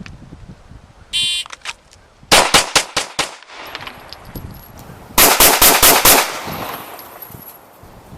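Shot-timer buzzer beeps about a second in, then a handgun fires a quick string of five shots within about a second, drawn from the holster. A second run of rapid gunshots follows about five seconds in.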